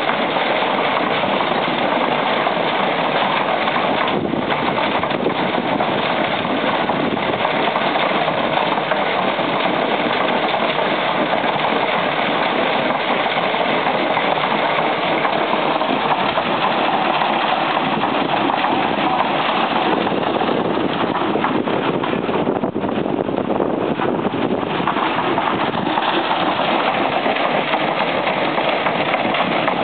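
Case VA tractor engine running steadily while it powers a concrete mixer, together with the churning of the turning mixer drum.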